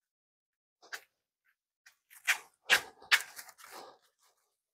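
A few short, irregular scuffs and slaps of a toddler's plastic sandals on a concrete path: one step about a second in, then a quick cluster of steps between two and four seconds.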